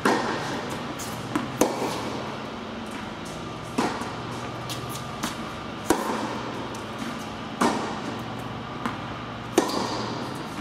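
Tennis baseline rally: six racket strikes on the ball about every two seconds, each echoing in a large indoor hall, with softer ball bounces between them and a steady low hum underneath.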